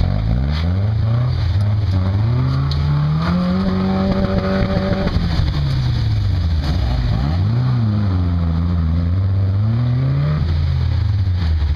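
Lifted pickup truck's engine revving under load as it crawls up a muddy, rutted trail. The revs climb and hold about four seconds in, drop back, then rise and fall again near the end over a steady low rumble.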